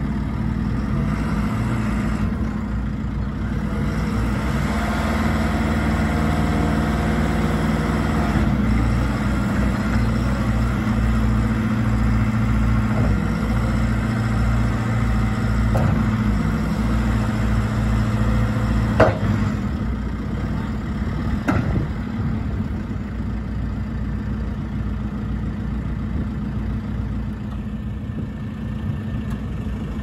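2013 JCB 3CX backhoe loader's diesel engine running, its note raised under hydraulic load as the front loader bucket is worked, then easing back toward idle. A sharp metal clank about two-thirds of the way through, the loudest sound, and a lighter knock a couple of seconds later.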